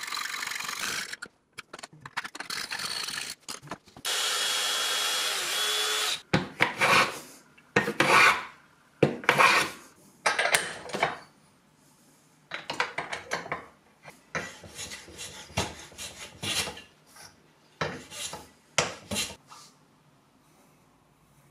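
A hacksaw cutting a small brass fitting clamped in a vise, then a run of separate back-and-forth hand-tool strokes on the maple knife handle, about one a second, louder at first and softer in the second half.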